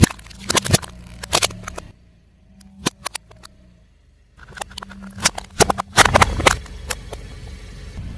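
Car tyre rolling over and crushing crunchy objects: rapid sharp cracks and crunches in two bursts, the first in the opening two seconds and the second from about halfway through, over a low engine hum, with a few isolated clicks in the quiet gap between.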